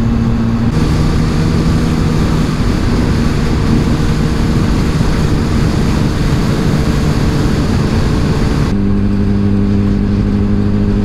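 Motorcycle engine running steadily under way, with wind noise on the microphone. About a second in, the engine note drops and the wind noise grows; near the end the note rises again and the wind noise eases.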